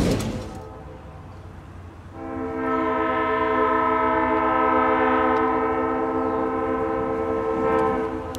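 Locomotive air horn sounding one long, steady chord for about six seconds, starting about two seconds in, as the train approaches a road grade crossing.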